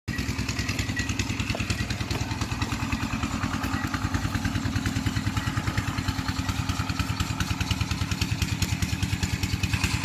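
An engine running steadily at an even speed, its firing pulses evenly spaced at about ten a second.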